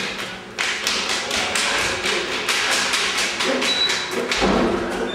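Hurried bare footsteps running down a staircase: a quick, uneven run of thumps and taps.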